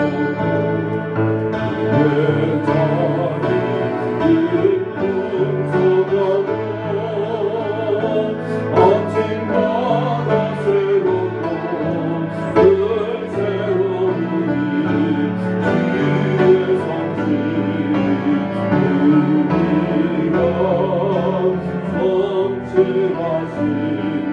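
Worship song sung by voices over steady instrumental accompaniment, a praise song during a church service.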